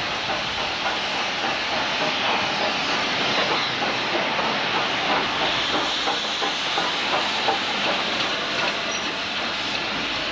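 LMS Stanier Class 5 (Black Five) 4-6-0 steam locomotive No. 5231 moving slowly past, with a steady loud hiss of escaping steam over scattered faint clicks and knocks from its wheels and running gear.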